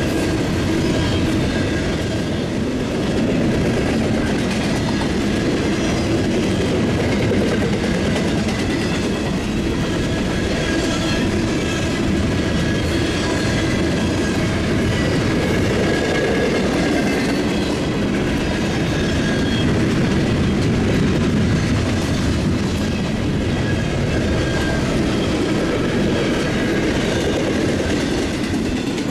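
Freight train cars rolling steadily past, wheels clattering on the rails, with a thin, high wheel squeal running through it.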